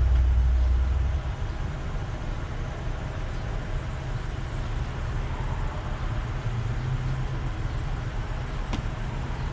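Car engine idling, a steady low rumble, a little louder for the first second or so and then even. A faint single click near the end.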